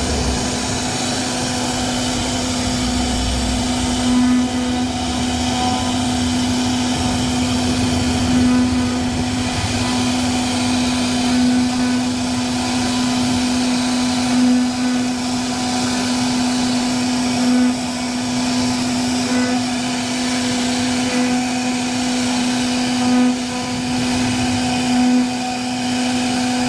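CNC router spindle motor running steadily at high speed, a constant pitched hum with noisy cutting sound over it as it carves wood.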